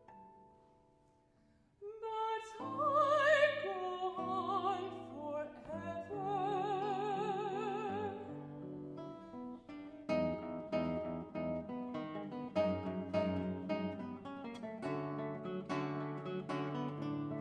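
Classical soprano singing with wide vibrato over a fingerpicked classical guitar, entering after a short pause about two seconds in. From about ten seconds in the voice stops and the guitar plays on alone in quick plucked notes.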